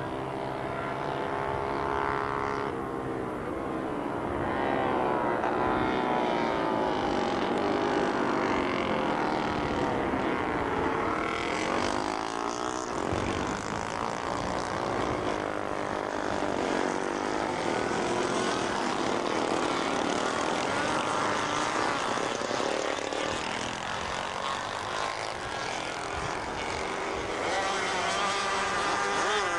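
Several racing motorcycle engines revving hard, their pitch rising and falling as the bikes accelerate, shift and brake through the corners and pass by, overlapping without a break.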